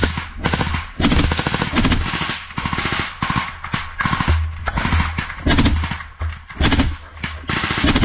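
Belt-fed light machine gun firing a long series of short bursts of rapid shots, one burst after another with brief pauses between.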